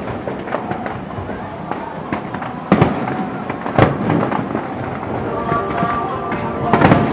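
Aerial fireworks bursting: sharp loud bangs about three and four seconds in and another cluster near the end, with rapid crackling between them.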